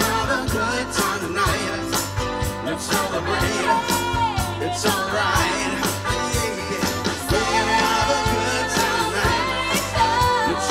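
Live rock band playing through a PA: lead vocals over electric guitar, bass guitar and a drum kit keeping a steady beat.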